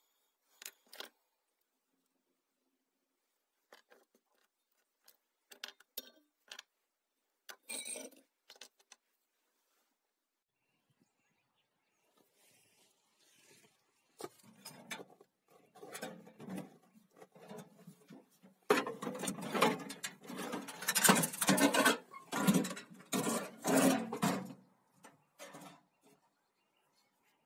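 A few light clicks of small metal and plastic lamp-socket parts being handled. Then a long run of rough scraping and knocking, loudest near the end, from a metal electrical box being opened and its wiring pulled about.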